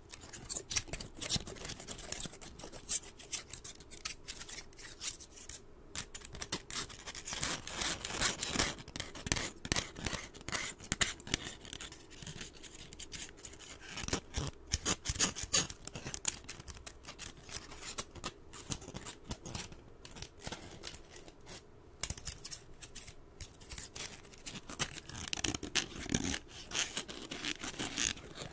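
Metal scissor blades opening, closing and sliding against each other, a quick irregular run of snips and scrapes.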